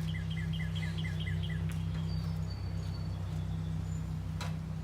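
Backhoe engine idling steadily, a low even hum. Over it, a bird gives a quick run of chirps, about five a second, in the first second and a half, and there is a sharp knock near the end.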